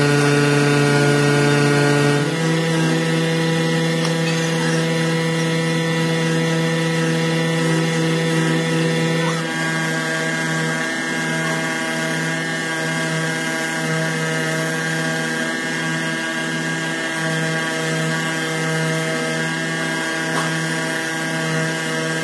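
A machine running steadily with a pitched hum. Its pitch jumps abruptly about two seconds in and again about nine seconds in, and after that it wavers slightly.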